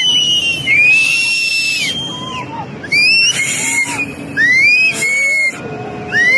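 Shrill, high-pitched human cries, repeated again and again, each rising, holding and falling, over a steady rushing roar of water.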